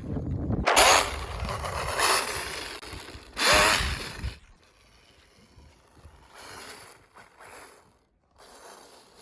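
Electric RC snowmobile with a brushless motor running over snow, giving three loud surges of noise in the first four seconds, then fainter running after about four and a half seconds.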